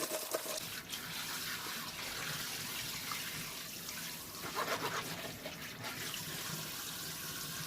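Steady rushing of water, with a few light knocks around the middle.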